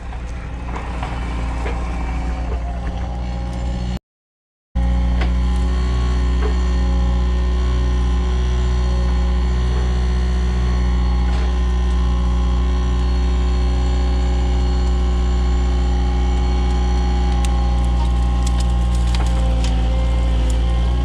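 Heavy-equipment diesel engine running steadily, with a break of under a second about four seconds in, after which it is louder and very even.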